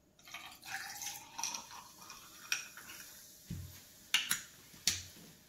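Fizzy sparkling water poured from a glass bottle into a glass with ice for about two seconds, followed by several sharp glass clinks and one dull knock as glassware is handled and set down on the table.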